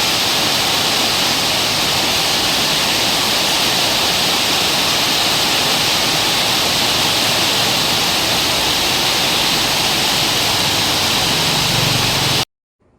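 Heavy rain falling in a steady downpour, an even hiss that cuts off suddenly near the end.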